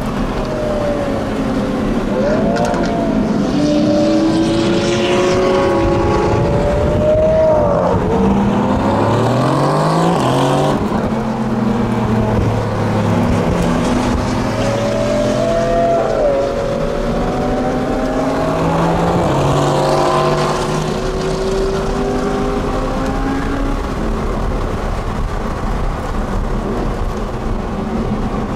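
Supercar engine running hard under acceleration, its revs climbing in steps and dropping back several times.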